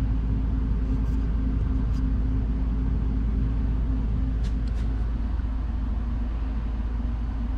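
Steady low hum and rumble of background machinery, with a few faint clicks and taps from handling the phone being used as a camera.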